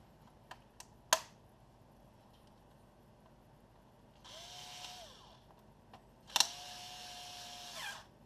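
Small electric screwdriver run twice, about a second and then about a second and a half, its motor winding up and down as it drives screws into the laptop. A few sharp clicks come just before.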